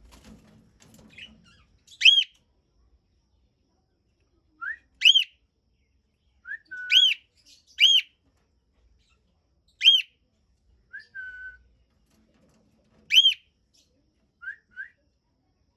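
Cockatiels calling: about six loud, short whistled calls that rise and fall in pitch, spaced a few seconds apart, with softer short rising chirps in between.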